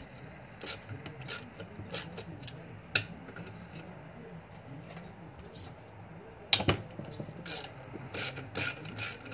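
Hand ratchet wrench clicking in short, uneven runs as bolts are loosened on a small mower engine, with one louder sharp knock about six and a half seconds in.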